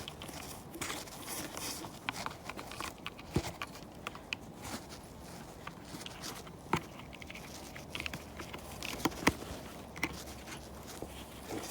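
A person's footsteps on a walk, with irregular clicks, knocks and rustling handling noise scattered through.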